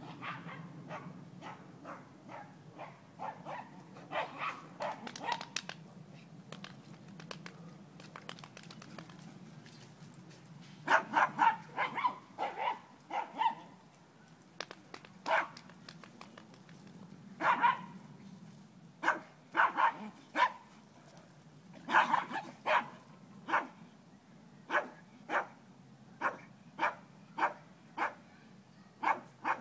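Dog barking in play: short, sharp barks, a quick flurry of them partway through, then single barks about a second apart.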